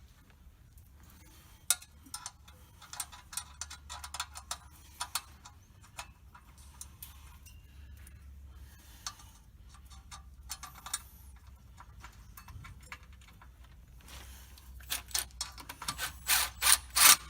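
Hand tools working on clutch parts: scattered light metallic clicking and rubbing, then a quick run of sharper knocks near the end.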